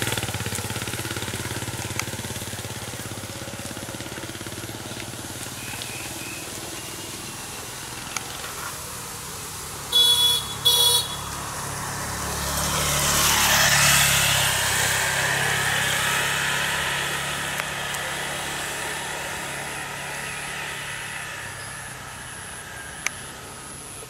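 A motorbike horn beeps twice in quick succession about ten seconds in. Then the motorbike goes past, its engine and tyre noise swelling and fading away.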